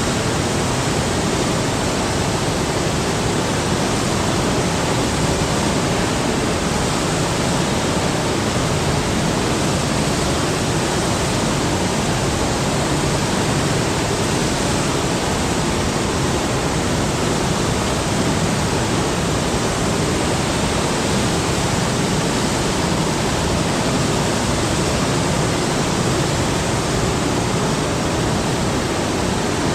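Large waterfall: a steady, continuous rush of falling water with a deep low rumble under it.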